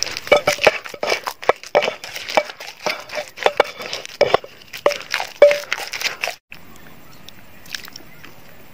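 Pestle pounding chili and palm sugar paste in a mortar: quick, irregular knocks and crushing for about six seconds. It then cuts abruptly to a quiet steady hiss with a couple of faint taps.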